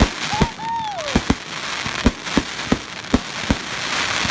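Fireworks going off: a quick, uneven run of sharp bangs, with a dense crackling hiss of crackle shells building up near the end.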